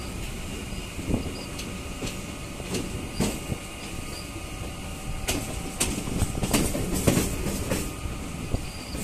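Suburban electric local train heard from aboard as it pulls out of the station: a steady running rumble with irregular metallic clacks of the wheels over rail joints and points, coming thicker in the second half.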